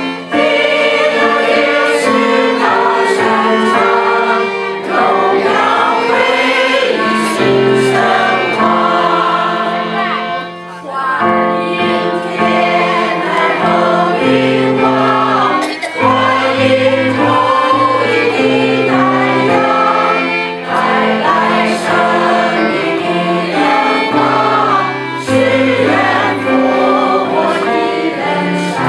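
Mixed choir singing a Christmas carol in sustained phrases, accompanied by violins and a cello, with short breaths between phrases.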